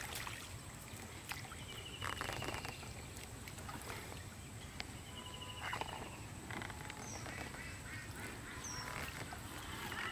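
A bird calling three times at intervals, each a short harsh call, with two brief high chirps between them over a faint outdoor background.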